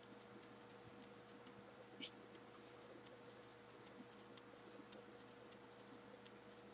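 Near silence: faint room tone with a steady low hum, and one faint tick about two seconds in.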